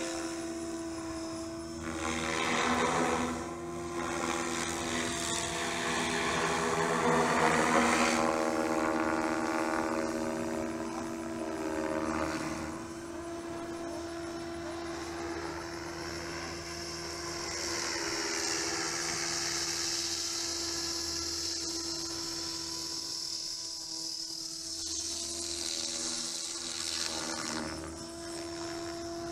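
Tron 5.5 electric RC helicopter flying, a steady whine from its rotors and motor with sweeping rises and falls in tone as it moves around the sky. It is loudest about three and eight seconds in.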